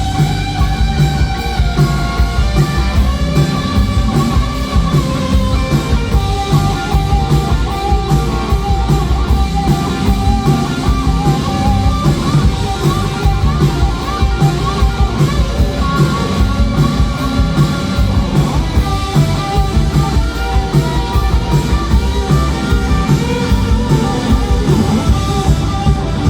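Rock band playing live: an electric guitar lead with wavering, bent notes over drums and a heavy low end.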